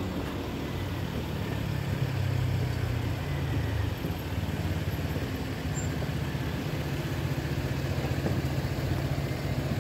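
Road vehicle engines idling at a closed level crossing: a steady low hum whose pitch shifts about four seconds in and again a couple of seconds later.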